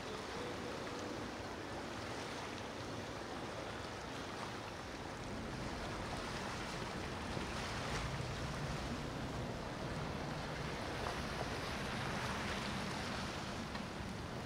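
Motor yachts cruising past: water rushing along the hulls and wake churning. A low engine drone grows stronger in the second half.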